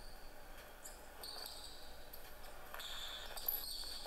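Basketball being dribbled on a gym's hardwood floor, with several short, high-pitched sneaker squeaks as the two players move.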